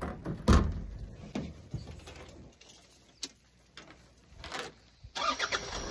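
A few scattered knocks and thumps, the loudest about half a second in. Near the end a vehicle engine starts and settles into idling.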